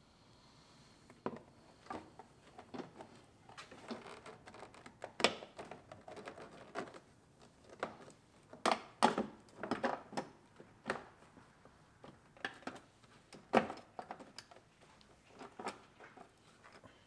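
Irregular knocks, clicks and scraping as a sheet-metal intake heat shield edged with a rubber grommet strip is pushed and worked into place against the car's inner fender.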